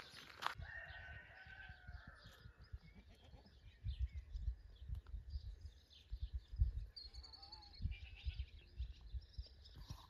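A goat bleats, one drawn-out call starting about half a second in and a shorter wavering call later on, over low thuds of footsteps on grass.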